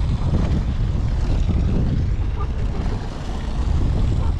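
Wind buffeting the microphone as a steady low rumble, over the noise of the boat and the sea.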